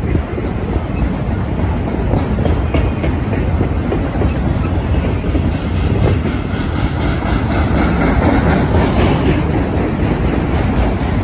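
Freight train of autorack cars rolling past at close range: a steady rumble of steel wheels on the rails, with repeated clicking as the wheels pass.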